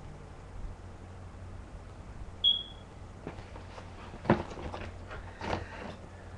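A few sharp knocks and rustles of handling close to the microphone as the package and webcam setup are moved, the loudest about four seconds in, over a steady low electrical hum. A short, high beep sounds once about two and a half seconds in.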